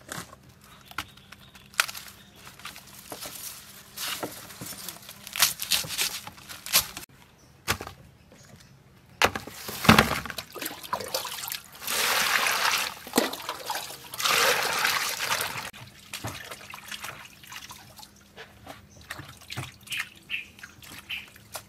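Herbs and vegetables being washed by hand in a plastic basin of water: splashing and sloshing, with dripping and trickling. Light clicks and knocks of handling come first, then a sharp splash about ten seconds in and two longer bouts of sloshing soon after.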